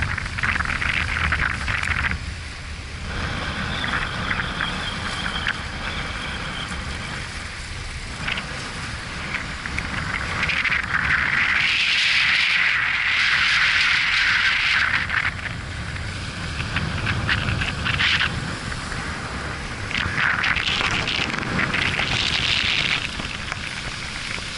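Surf washing and splashing against jetty rocks, with wind rumbling on the microphone. The splashing swells for a few seconds around the middle and again near the end.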